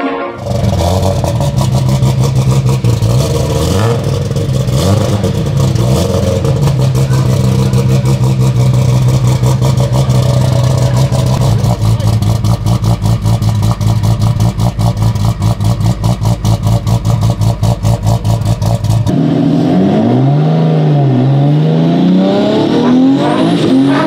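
Nissan Skyline R34 GT-R's 1500 hp RB36 straight-six idling, with a few quick throttle blips in the first five seconds, then a steady idle that pulses rhythmically. About nineteen seconds in it is heard from inside the cabin accelerating hard: revving up through first gear, dropping briefly at the shift, then climbing again in second.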